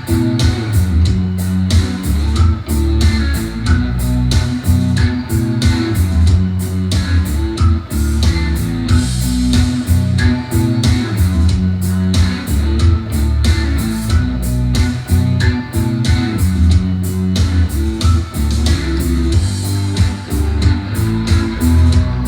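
Music with guitar and bass over a steady drum beat, played as a demo through Edifier R1280 bookshelf speakers driven by an FX Audio Tube 03 tube preamp.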